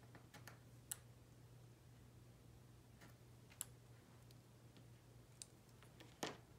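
Sparse light clicks and taps of a craft knife, tweezers and tiny miniature sushi pieces against a cutting mat: a handful of sharp ticks, the loudest near the end, over a faint steady hum.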